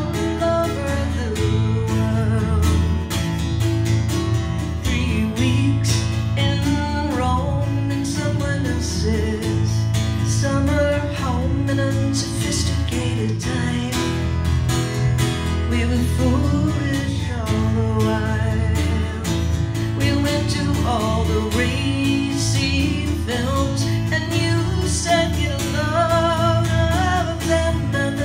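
Live acoustic performance of a country-pop song: strummed acoustic guitar over upright bass, with a wavering melody line above them.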